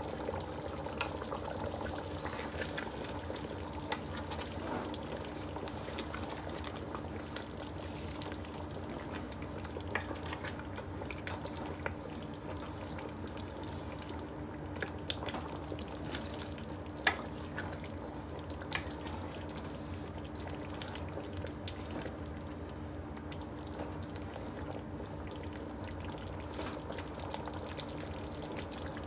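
Stew cooking in a pot on the stove: a steady sizzling bubble with scattered sharp pops and clicks, the loudest about 17 seconds in, over a faint steady hum.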